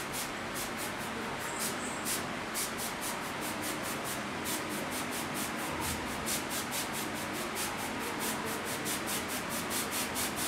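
Airbrush spraying paint: a steady hiss of air with a fast, even pulsing, about five pulses a second.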